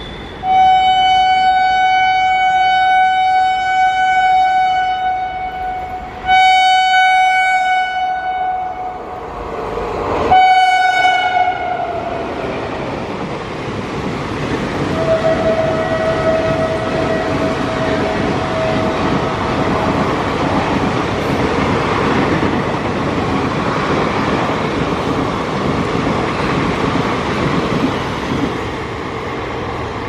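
WAP-4 electric locomotive's horn blowing three times, two long blasts and a shorter third whose pitch drops at its end as the locomotive goes by, followed by the express's coaches passing at speed over the rails.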